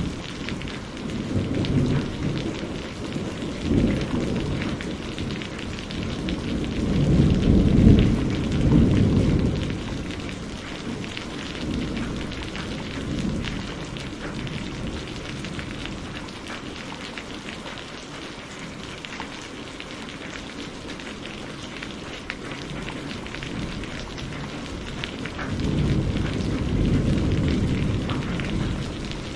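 Thunderstorm: steady rain with rolling thunder rumbling low. There is a short rumble about four seconds in, the loudest roll around eight seconds in, and another long rumble near the end.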